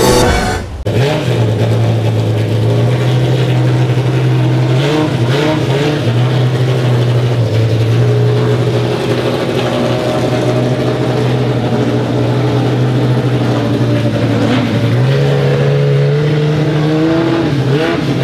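A race car engine running at a steady, fast idle, its revs stepping up twice and holding for a few seconds each time.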